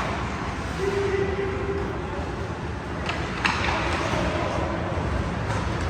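Ice hockey arena ambience during play: a steady murmur of spectators' voices, with one sharp knock about three and a half seconds in, typical of a puck or stick striking.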